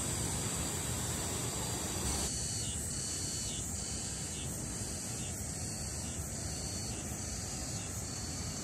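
Steady outdoor background noise: a low rumble under a thin, high steady hiss. The sound changes abruptly a little over two seconds in.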